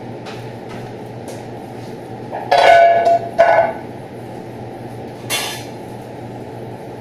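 Metal pots or utensils clattering: two loud clanks about two and a half and three and a half seconds in, the first ringing briefly, and another sharp knock a few seconds in, near the five-second mark. Under it runs the steady drone of a kitchen extraction hood fan.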